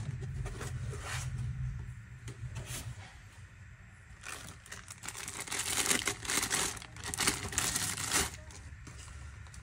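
Thin plastic packaging bags crinkling and rustling as hands unwrap the grinder's parts, loudest and densest in the second half. Softer handling and rubbing noise comes in the first few seconds.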